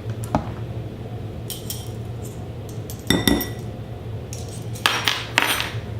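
Kitchen utensils clinking against dishes: a metal spoon knocking on a bowl, with a few sharp clinks, one ringing briefly about three seconds in, and a clattering scrape near the end. A steady low hum runs underneath.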